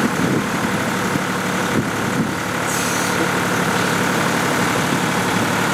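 Canal boat's engine running steadily as the boat moves slowly along, a constant even hum.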